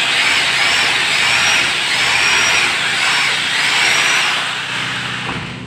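A tool working: a loud, hissing rasp that swells and eases in a repeating stroke about every 0.7 seconds, tailing off near the end.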